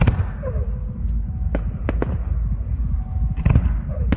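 Fireworks display going off: a rapid series of sharp bangs and crackles over a continuous low rumble, with heavy bursts right at the start and again about three and a half seconds in.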